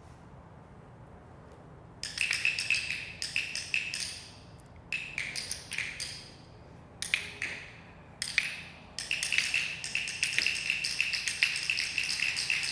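Many handheld training clickers clicked by a group at once, in dense overlapping runs of sharp clicks. They start about two seconds in, come in several bursts with short pauses, and run on without a break near the end. Each click marks the learner doing the right thing in a clicker-training game.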